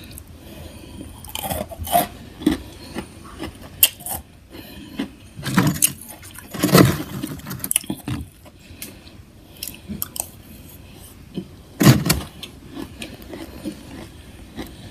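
Freezer frost crunching as it is scooped with a metal spoon and eaten: irregular crisp crunches and scrapes, with a few louder crunches in the middle and one near the end.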